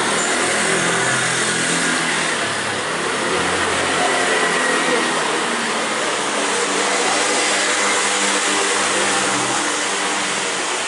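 A motor scooter's engine running close by as it rides past, loud and steady, its pitch wavering up and down and easing off slightly near the end.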